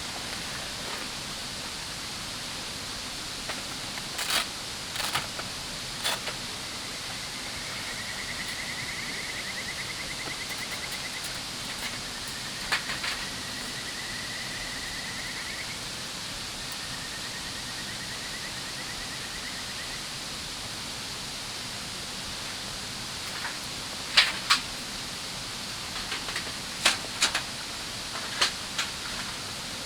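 Steady rush of a river flowing past, with a high trilling call three times in the middle and scattered sharp clicks and knocks near the start and again over the last few seconds.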